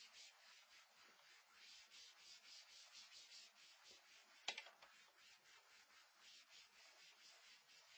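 Faint repeated strokes of an eraser rubbing across a whiteboard, wiping off marker writing. A single sharp knock sounds about halfway through.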